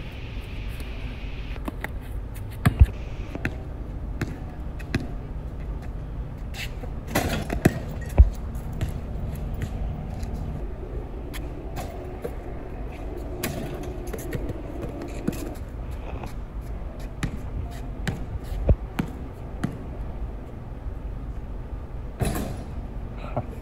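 Basketball bouncing now and then on street pavement, with a few louder thumps among scattered clicks over a steady low street hum.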